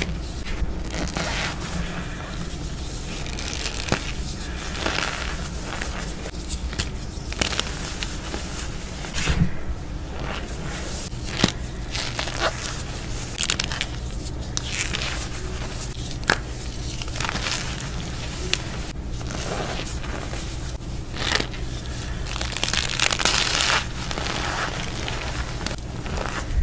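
Hands squeezing and crumbling a mound of cornstarch mixed with gym chalk chunks: a continuous, irregular crunching of the packed powder, broken by sharp crackles as the chalk pieces break apart.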